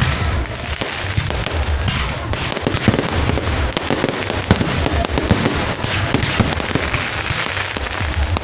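Aerial fireworks shells bursting one after another in a dense, unbroken run of bangs and crackling pops over a steady low rumble.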